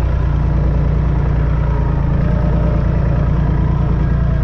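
Massey Ferguson 135's three-cylinder diesel engine running steadily with an even, fast firing beat.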